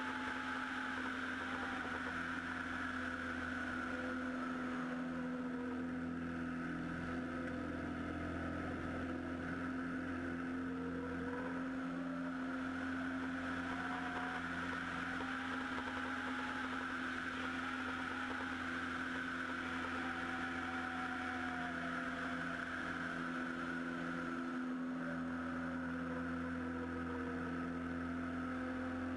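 Super Decathlon's four-cylinder Lycoming engine and propeller droning steadily in aerobatic flight, heard from a camera mounted outside on the wing strut.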